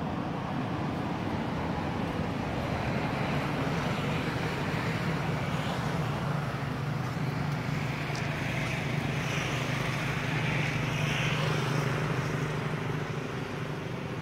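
A steady low engine drone over outdoor background noise, with a higher hiss swelling in the middle of the stretch.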